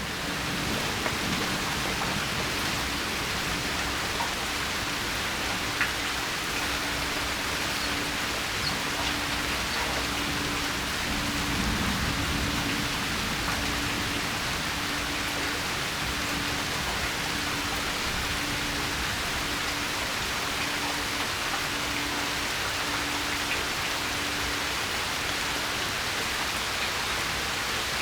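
Steady rain falling, a continuous even hiss with occasional single drops ticking.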